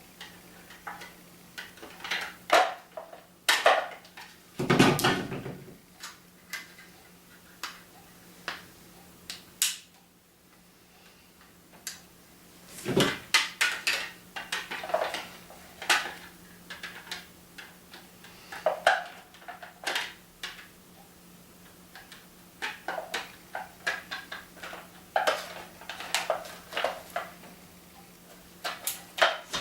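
Hard plastic parts of a paintball loader's shell being handled and fitted back together: scattered clicks and knocks, with a louder clatter about five seconds in.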